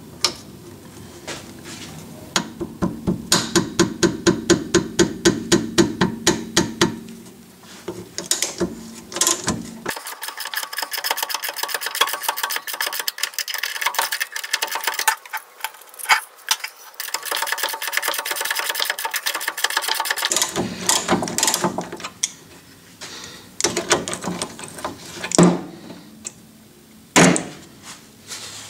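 Ratchet wrench clicking as the lower rear shock absorber bolt on a Volvo V70's control arm is undone: a steady row of clicks, about three or four a second, as the handle is swung. About ten seconds in comes a fast run of clicks while the loosened bolt is spun out by the socket, and a few sharp metal knocks come near the end.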